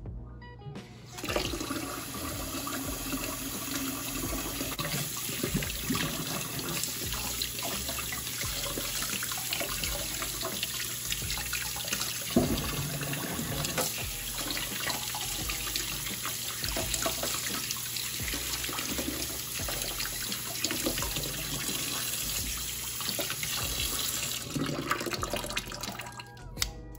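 Kitchen tap running into a sink while fruit is washed under it, a steady splashing hiss that starts about a second in and stops near the end. Background music plays underneath.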